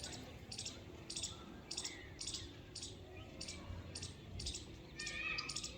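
High-pitched chirps repeated at an even pace, about two a second, from a small calling animal.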